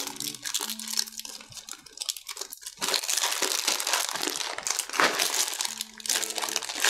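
Small clear zip-lock plastic bags full of enamel pins crinkling and rustling as they are rummaged through and lifted, heaviest from a little under halfway through.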